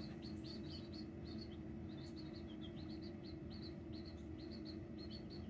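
Baby chicks peeping: a faint, continuous run of short high peeps, several a second, over a steady low hum.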